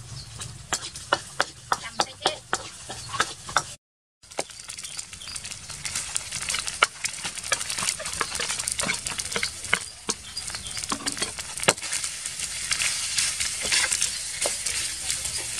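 Rice and scrambled egg stir-frying in a steel wok: a steady sizzle with a metal spatula scraping and clinking against the pan. Before it, in the first few seconds, a run of sharp knocks, about three a second.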